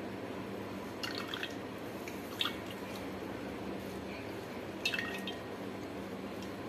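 Wet grated coconut being squeezed by hand in a steel strainer, faint squishing with coconut milk dripping through into the steel bowl below. A few short soft clicks, about one, two and a half and five seconds in.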